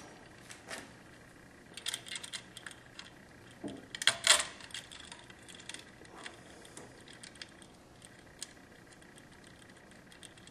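Small metal hardware clicking and clinking as nuts, washers and wire lugs are fitted by hand onto a battery charger's rectifier plate studs. The clicks are scattered and irregular, with a cluster about two seconds in and the loudest clinks just after four seconds.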